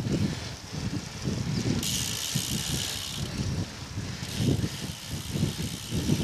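Wind buffeting the microphone over the road noise of a road bicycle riding in a group. A higher hiss starts about two seconds in, stops a second or so later and comes back past the middle.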